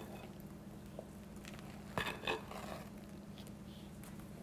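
Wooden spoon folding whipped topping into softened cream cheese in a glass bowl: faint soft stirring, with two light knocks of the spoon against the bowl about two seconds in. A steady low hum runs underneath.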